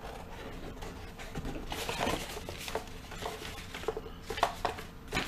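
Paper and cardboard rustling as a sheet of paper is pulled out of a cardboard box and handled, with scattered small clicks and taps.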